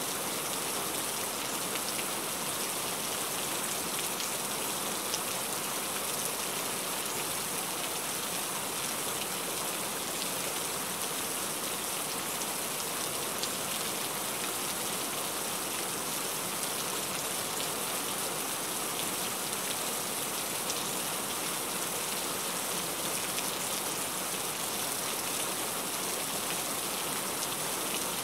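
Heavy rain falling steadily, a dense even hiss with the patter of individual drops on a surface.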